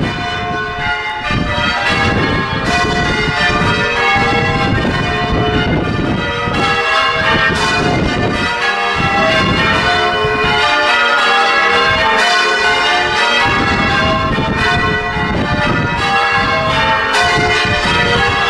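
Church bells rung full circle in sequence by a band of ringers, strike after strike in quick succession with their tones overlapping and ringing on, steady and loud throughout.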